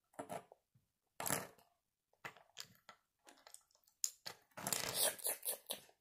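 Small plastic Lego pieces being handled and set down on a wooden table: scattered short clicks, taps and rustles, more frequent in the second half.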